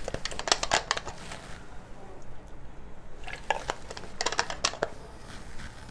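Plastic water bottle being handled: quick clusters of crackles and clicks in two bursts, one at the start and another about three and a half seconds in.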